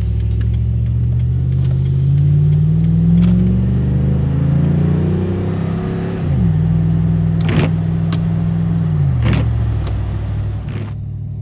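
Chevrolet Silverado pickup engine heard from inside the cab as the truck accelerates: its pitch rises, then steps down as it shifts up about six seconds in, and again near the end. A few sharp clicks sound over the engine in the second half.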